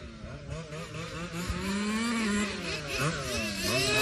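Small two-stroke engines of a 1:5-scale FG gas RC car and a nitro RC car revving up and down as the cars race. Their overlapping engine notes keep rising and falling in pitch and cross each other.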